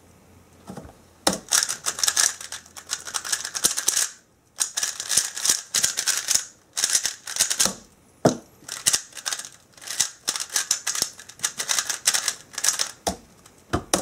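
GAN 356 Air UM 3x3 speed cube turned very fast by hand, rapid clacking layer turns in bursts, with a short pause a little after four seconds in. After a brief stop around eight seconds in, the turning resumes as the cube is scrambled again.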